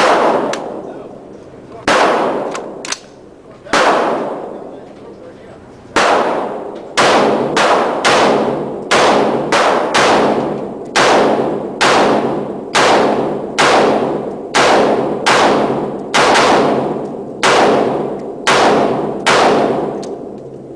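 A semi-automatic firearm fired in a long string of about two dozen shots, a few spaced out at first, then a steady pace of about two shots a second. Each shot is loud and echoes briefly after it.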